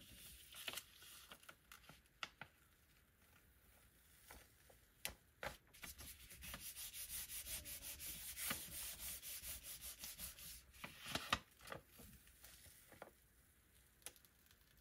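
Hands rubbing a sheet of paper pressed onto a gel printing plate to burnish a print: a faint, dry paper rustle in quick back-and-forth strokes, with a few light ticks. Near the end the sheet is lifted off the plate.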